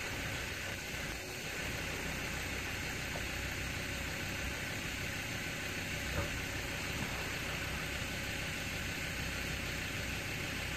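Steady engine idling under a constant hiss, with no clear change in speed.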